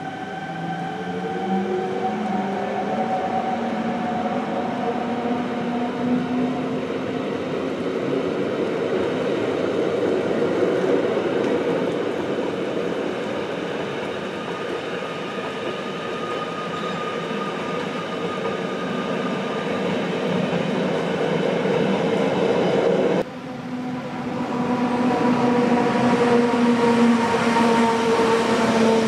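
Rhaetian Railway metre-gauge electric train passing through the station: the rolling rumble of the coaches with steady whining tones from the electric traction equipment, the tones drifting slightly in pitch at the start. About 23 seconds in the sound cuts abruptly to another passing electric train with similar steady whining tones.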